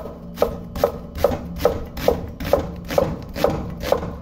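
A large chef's knife slicing through half an onion onto a wooden board: about ten even chops, roughly two and a half a second.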